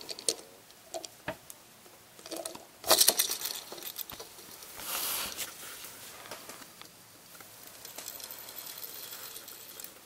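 Plastic clicking as a Lego Ninjago spinner (NRG Kai) is fitted to its launcher and launched, with a loud cluster of sharp clicks about three seconds in. This is followed by a faint steady whir as the spinner spins on a hard table top.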